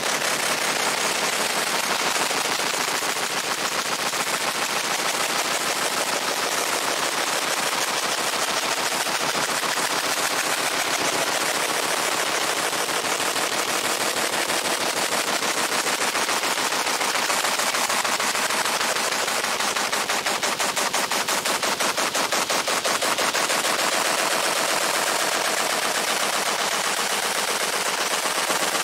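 Fiber laser engraver ablating a steel sledgehammer head: a steady, rapid crackling buzz as the laser pulses hit the metal.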